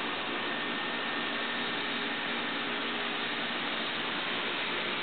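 Steady background hiss with a faint steady hum underneath; no distinct event.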